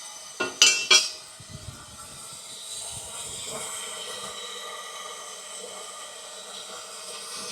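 Two quick metallic clinks about a second in, as a copper pipe is set back in place, then a steady hiss of water running into the water heater tank as it refills.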